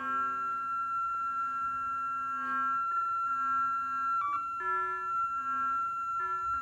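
Modular synthesizer sounding electronic tones: a high, steady tone held throughout, over lower notes that switch on and off and change pitch every second or so.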